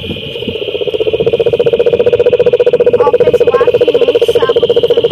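A frog calling up close: a long, loud, rapid pulsed trill that swells over the first second and then holds steady. Behind it is a steady high-pitched chorus of insects or other frogs, with a few short chirps from another frog.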